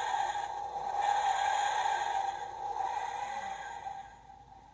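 A steady electronic buzz held at one pitch, swelling and dipping slowly, then fading out about four seconds in.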